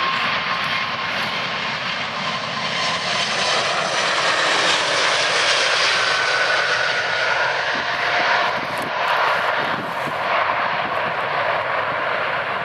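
Jet airliner engines running: a loud, steady rushing roar with a faint whine that slides in pitch around the middle.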